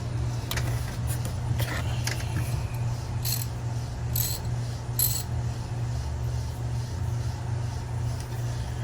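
Metal hand tools clinking and scraping as a socket on a ratchet extension is worked onto a spark plug deep in the engine bay: a few sharp, separate clinks in the first five seconds, over a steady low hum.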